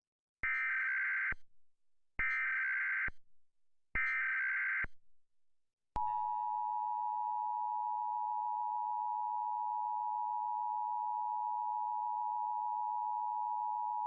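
Emergency Alert System tones. First come three short bursts of screeching digital data, the SAME header, each about a second long with a gap between them. From about six seconds in, the steady, harsh two-tone EAS attention signal sounds. Together they mark the start of an EAS alert, here a National Periodic Test.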